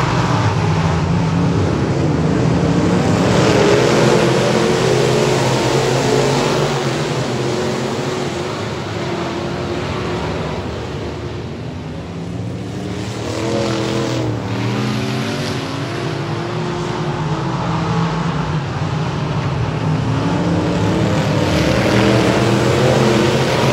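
A field of dirt-track race cars running laps, several engines revving and changing pitch as they go through the corners and pass by. The sound dips for a few seconds about halfway through, then builds again as the pack comes back around.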